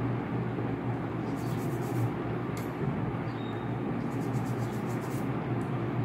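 Paintbrush strokes on paper, heard as faint scratchy swishes now and then, over a steady low background hum.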